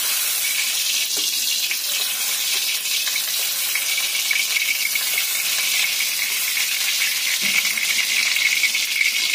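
Cooking oil sizzling in a hot kadhai as more oil is poured in from a bottle: a steady hiss that grows a little stronger about halfway through.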